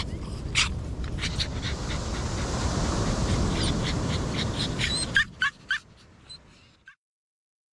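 Wind buffeting the microphone with a small long-haired dog panting close by. About five seconds in come three short, rising, high-pitched squeaks, and then the sound falls away.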